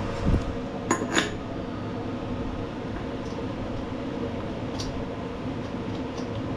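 A low thump, then two sharp metallic clinks about a second in, as metal engine parts and tools are handled during flywheel reassembly, over a steady fan-like hum.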